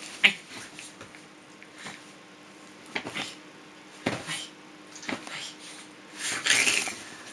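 Hands scratching and patting on a bedspread while a small dog moves about in play, giving a few sharp thumps and rustles. The loudest hit comes just after the start, and a longer scratchy rustle comes near the end.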